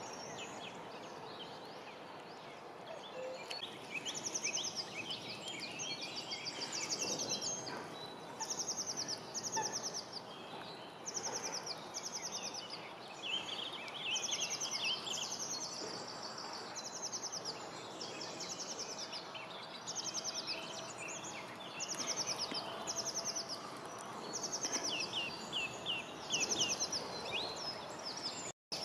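Songbirds singing: one repeats a short, fast, falling trill every second or two, while another adds lower chirps now and then, over a steady background hiss. The sound drops out for a moment near the end.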